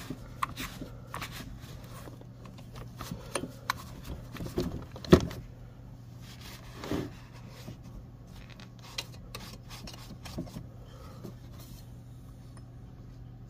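Hands working on a chainsaw's bar-mount area: a rag rubbing over the metal studs and washer, with scattered light metallic clicks and knocks, the sharpest about five seconds in. A steady low hum runs underneath.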